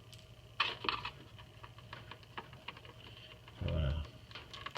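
Clicks and light clatter from a condensate pump and its fittings being handled while it is disconnected, with a cluster of clicks about a second in and a dull low thump near the end, over a faint steady hum.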